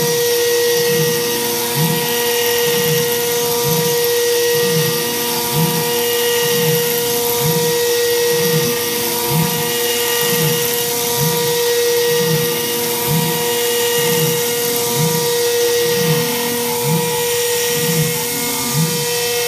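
CNC spindle at about 18,000 rpm milling 6061-T6 aluminium with an Onsrud 63-620 end mill: a steady high whine over a hiss, with the cutting sound swelling and fading a little more than once a second.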